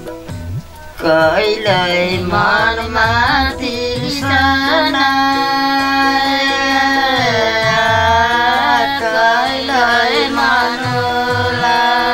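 A song in the background: a voice sings long, ornamented notes that slide in pitch, coming in about a second in, over a steady low tone and soft drum beats.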